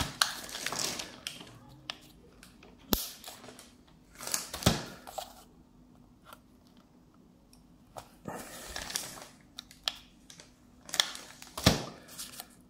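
Wooden clothespins and a cardboard base being handled and pressed into place on paper: scattered sharp clicks and taps with short rustles, a few louder knocks among them.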